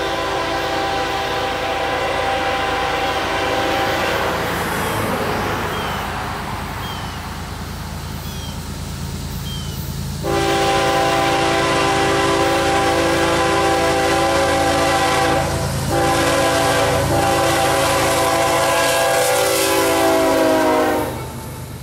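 Air horn of a CSX GE ES44AC diesel locomotive sounding two long chords over the rumble of the approaching train. The second, louder blast has a brief break in the middle, drops slightly in pitch as the locomotive passes close by, and cuts off near the end.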